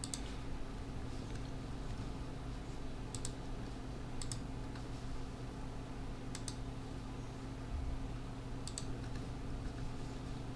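Computer mouse clicking, about five sharp clicks a second or two apart, over a steady low hum.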